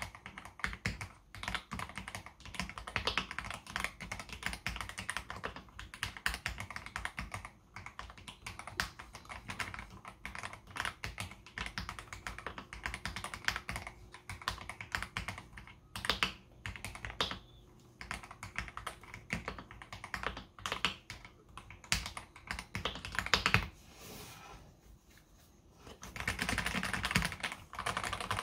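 Continuous typing on a mechanical keyboard fitted with lubed AKKO CS Jelly Pink linear switches, a dense run of irregular key clacks. It pauses briefly about three quarters of the way through, then resumes more densely.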